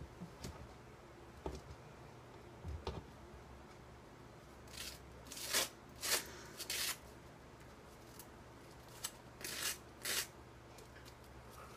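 A knife scraping butter across toast in short, scratchy strokes: four strokes about five to seven seconds in and three more near the end, after a few light knocks at the start.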